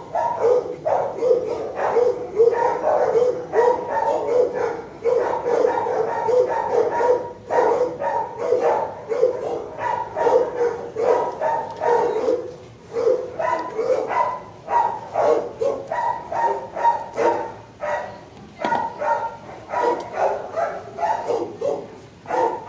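Shelter dogs barking continuously, several barks a second with short lulls.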